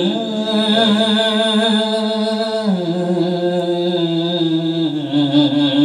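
A solo male voice sings a na'at, a devotional poem in praise of the Prophet, drawing out its opening word in long held notes. The pitch steps down nearly three seconds in, and the voice wavers near the end.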